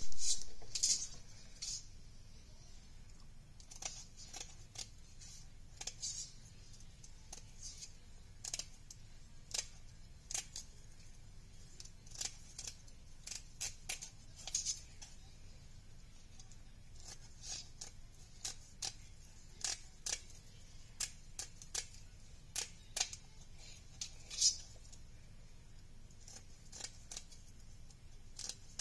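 Scissors snipping through rhinestone mesh ribbon: a string of short, sharp, irregular snips and clicks, about one to two a second. The loudest comes right at the start, with another strong one a little before the end.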